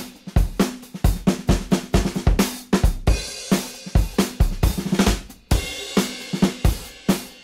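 Background music track: a drum kit playing a steady, busy beat, with bass drum, snare and cymbals.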